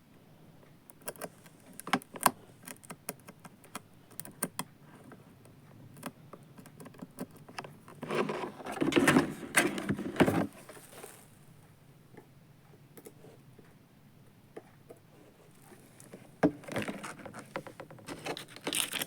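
Irregular light clicks, taps and rattles, with a denser, louder rattling spell about eight to ten seconds in and another cluster near the end.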